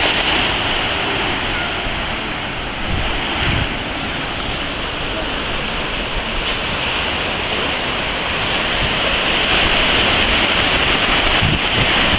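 Ocean surf breaking and washing over the shore in a steady rush, growing a little louder near the end, with wind rumbling on the microphone now and then.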